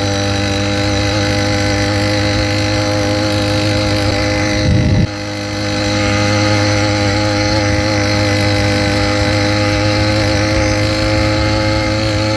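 Motorized bicycle's kit engine running steadily at moderate throttle while riding, a brief louder surge about five seconds in.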